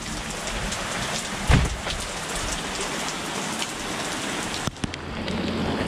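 Heavy rain pouring down, a steady hiss, with a brief low thump about a second and a half in.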